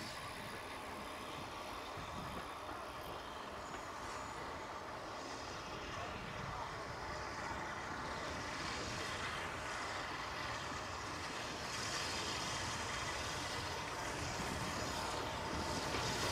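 Steam train running on the line, a steady rumble and hiss that grows gradually louder as it approaches.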